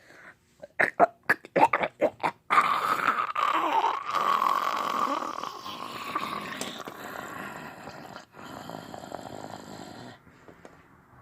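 A quick run of short, sharp clicks, then a long, rough, drawn-out burp that lasts about seven seconds, wavers in pitch and fades before cutting off.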